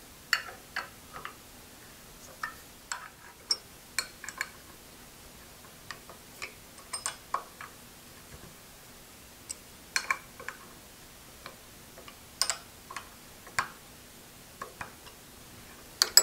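Irregular small metallic clicks and taps of a hand tool and small parts being handled against a milling machine's tilt-adjustment gear and hub, over a faint steady hum.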